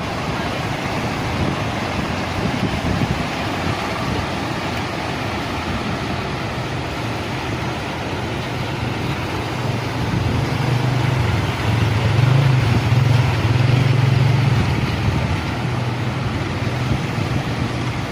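Fishing boat engine running with a low steady hum that grows louder about ten seconds in and eases off a few seconds later, over a constant rush of strong wind.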